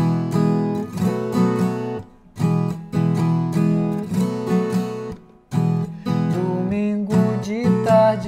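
Viola caipira (ten-string Brazilian folk guitar) strumming the cururu rhythm in sharply struck chords, playing the virada turnaround of the introduction. It comes in three phrases broken by two brief pauses, about two and five seconds in.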